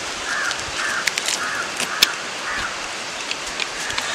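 Marinated quail on a skewer sizzling over hot charcoal embers in an earth pit: a steady hiss with scattered sharp crackles, two of them louder.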